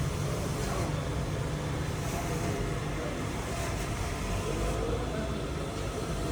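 Steady low mechanical rumble of running machinery, an engine or motor running without change.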